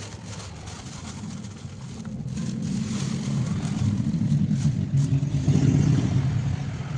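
A motor vehicle passing: a low engine rumble that swells over a few seconds, loudest near the end.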